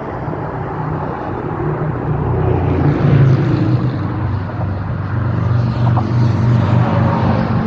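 Road traffic going by, a steady low engine rumble that swells about three seconds in.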